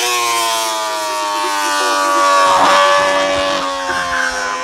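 Racing motorcycle engine running hard, its pitch slowly falling, with a few short breaks at gear changes.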